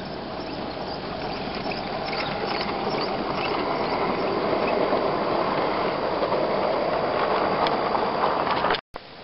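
G-scale (45 mm gauge) model train, a diesel locomotive hauling coaches, running past close by: a steady rumble of wheels and motor that grows louder as it nears, with a few light clicks over the track early on. It cuts off suddenly near the end.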